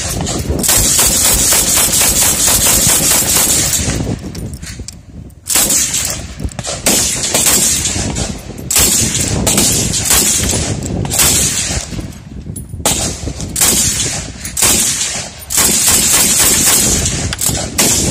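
Czech UK vz. 59 belt-fed machine gun, converted to semi-automatic, firing 7.62x54mm rounds shot after shot in quick succession. The strings of fire break off briefly about four seconds in and again about twelve seconds in.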